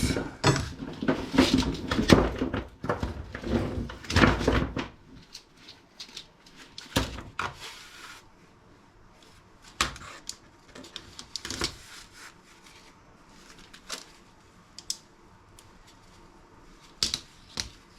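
Objects being handled and knocked about while an item is picked up and turned over for disassembly: dense clattering for about the first five seconds, then a handful of separate clicks and knocks.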